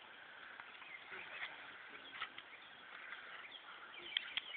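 Faint chirping of small birds throughout, with a few sharp snaps close together near the end.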